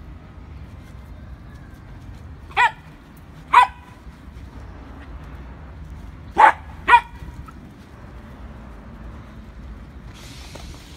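Wire fox terrier barking at a rabbit in a hutch: four short barks in two pairs, the first pair about a second apart, the second pair quicker, about half a second apart.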